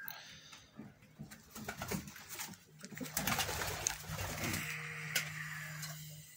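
Pigeons cooing, mixed with scuffing and rustling that is loudest in the middle, and a steady low hum through the second half.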